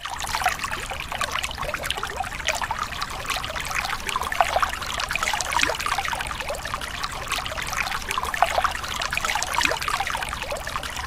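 Shallow river water flowing and bubbling over rocks, heard right at the water's surface as a steady run of small splashes and gurgles.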